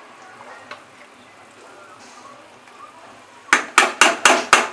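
Thick potato curry simmering faintly in a kadai. About three and a half seconds in, a spatula starts scraping and knocking against the pan in quick strokes, about four a second, as the curry is stirred.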